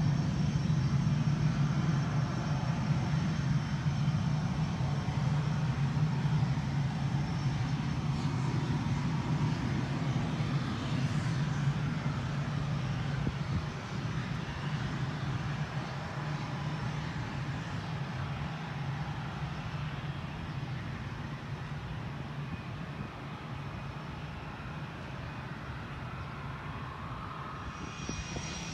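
Twin jet engines of a Swiss Air Force F/A-18 Hornet fighter running at low taxi power: a steady low rumble with a faint high whine, dropping off about halfway through and fading slowly.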